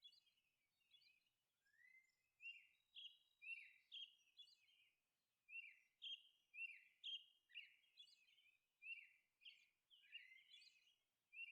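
Faint birdsong: short chirps, each falling in pitch, repeated one or two times a second.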